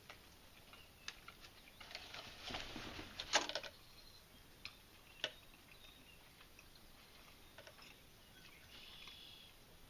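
A person chewing a mouthful of breaded buffalo chicken sandwich, with faint wet mouth clicks and small crackles, busiest about two to three and a half seconds in.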